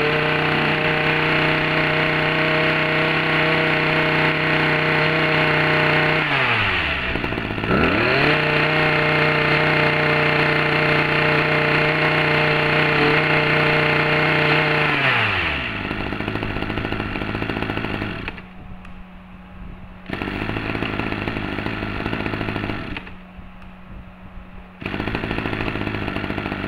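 Ryobi 23cc two-stroke brush cutter engine revved to high speed and held there, easing off and picking up again about seven seconds in. About fifteen seconds in the revs fall away and it settles to a lower steady idle, with the sound dropping and coming back twice near the end.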